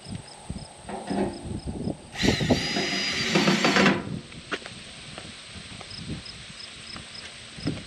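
Cordless drill running in two bursts: a short one about a second in, then a louder one of nearly two seconds with a steady whine that starts and stops abruptly. It is fastening the new mailbox to its mounting board, amid a few light knocks from handling the box.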